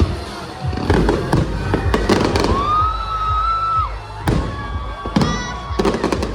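Fireworks going off in quick succession, with repeated sharp bangs and crackles and a long whistling tone through the middle, over background music.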